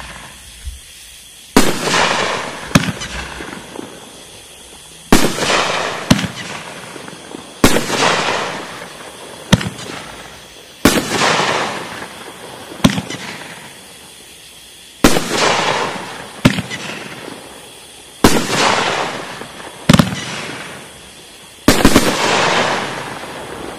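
Nine-shot brocade fireworks cake firing shots one after another, about every three to four seconds. Each shot is a quieter thump, followed a second or two later by a loud bang that fades out over a couple of seconds.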